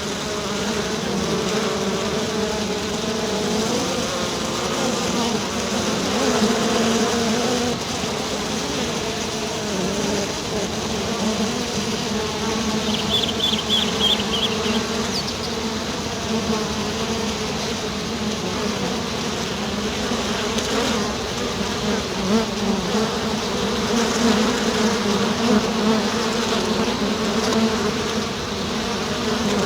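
A swarm of honeybees buzzing together in a steady, dense drone that wavers slightly in pitch. A brief high chirp comes through about halfway.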